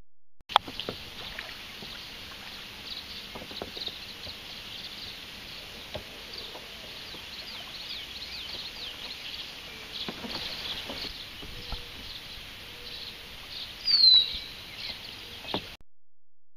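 Marsh wildlife chorus: many short, high, falling chirps overlapping one another without pause. About fourteen seconds in, one louder, sharp, downward-sliding call stands out.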